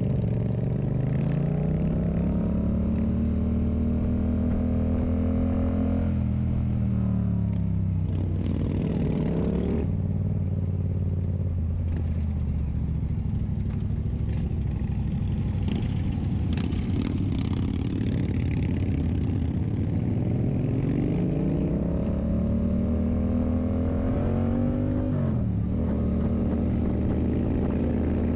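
Yamaha MT-07's parallel-twin engine through an SC Project aftermarket exhaust, heard from the rider's seat on the move. The revs climb and hold, fall away about seven seconds in and stay low for several seconds, then climb again. Near the end there is a quick sharp dip before the revs rise once more.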